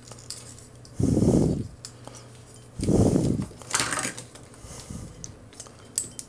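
Small plastic transforming robot action figures handled and posed by hand: plastic parts clicking and knocking against each other, with two louder dull bumps about one and three seconds in.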